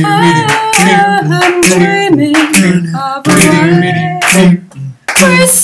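Vocal music: voices singing a wavering melody in harmony over sharp percussion hits, dropping out briefly near the end.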